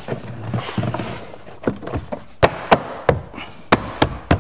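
Hand knocking and pressing on a BMW 4 Series door trim panel to seat its plastic retaining clips: a string of sharp knocks at irregular intervals, most of them in the second half.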